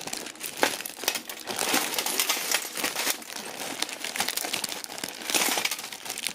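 A bag crinkling and crackling in irregular bursts as hands open it and rummage through the jewelry inside, a little louder about five seconds in.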